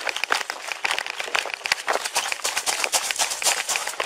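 Running footsteps on pavement with the rubbing and jostling clatter of a body-worn camera on a running officer's uniform: a rapid, irregular run of knocks and scuffs.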